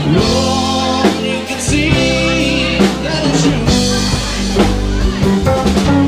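A live rock band playing a song on electric guitars and drum kit, with steady drum hits under the guitar lines.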